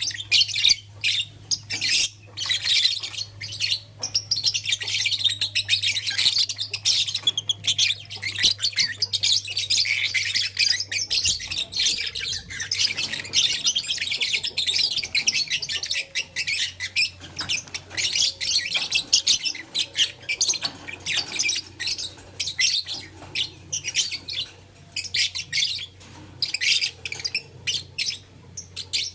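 Lovebirds chirping and chattering in a continuous stream of rapid, high-pitched calls, with occasional squawks.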